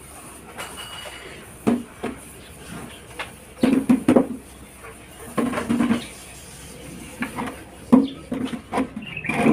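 Wooden chair being moved and set in place: clusters of hollow wooden knocks and scrapes, busiest about four and six seconds in and again near the end.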